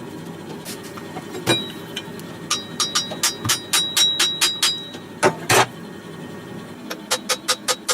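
Quick runs of sharp knocks on metal, about five or six a second, with a faint metallic ring: one run through the middle, two heavier knocks, then another run starting near the end.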